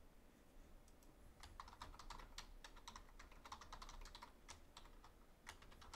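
Faint computer keyboard typing: a quick run of keystrokes starting about a second in and going on almost to the end.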